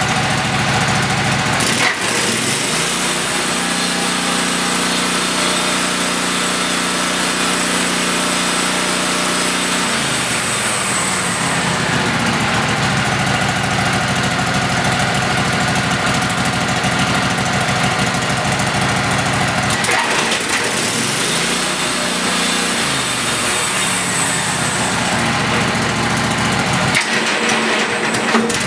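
The engine of a Wood-Mizer LT15GO portable sawmill running steadily. Its speed is raised with the throttle about two seconds in, dropped back around ten seconds, then raised and lowered once more past the twenty-second mark.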